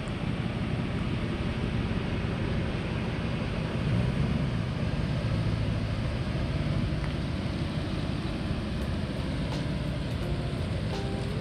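Car being driven: a steady mix of engine and road noise.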